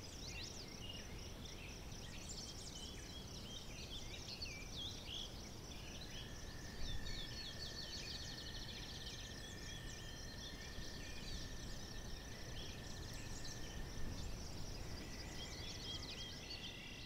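Countryside ambience of small birds chirping and twittering, with a rapid trill partway through, over a low steady background rumble. A thin steady high tone comes in about six seconds in and holds to near the end.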